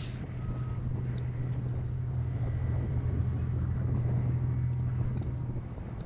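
Low, steady vehicle engine drone that swells slightly towards the middle.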